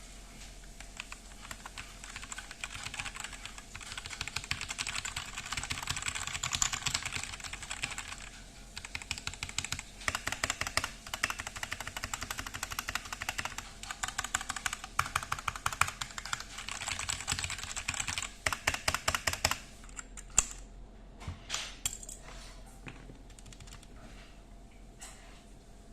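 Mechanical keyboard being typed on rapidly in a steady stream of key presses, then slowing to a few separate keystrokes that thin out near the end.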